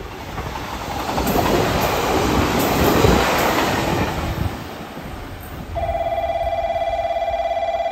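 JR Kyushu YC-1 series hybrid diesel-electric train passing through the station at speed, its rumble and wheel noise swelling to a peak about three seconds in and fading as it goes away. About six seconds in, an electronic warning bell starts ringing in a steady rapid pulse.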